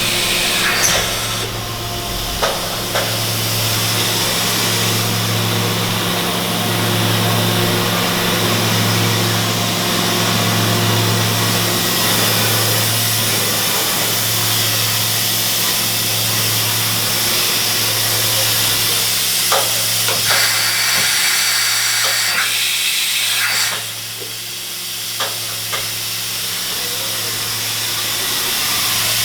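Makino F5 CNC vertical machining center running under power: a steady low hum with a dense high hiss on top and occasional sharp clicks. It drops noticeably quieter about three-quarters of the way through, then builds back up.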